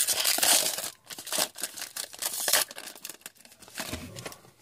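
A foil trading-card pack being torn open, its wrapper crinkling and rustling, loudest in the first second and then in scattered crackles.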